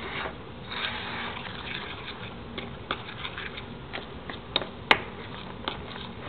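Spoon stirring cocoa into cake mix in a bowl: soft scraping, with scattered clinks of the spoon against the bowl, the sharpest about five seconds in.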